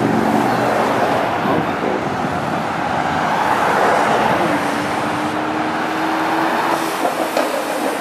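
Steady city street traffic: cars and a pickup truck driving past, with engine and tyre noise on the road.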